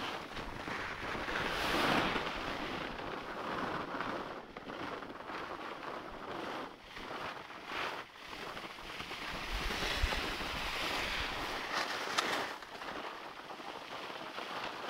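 Skis sliding and scraping over packed, tracked snow: a rushing hiss that swells and fades as the skier turns and brakes. Wind buffets the microphone, with a low rumble about ten seconds in.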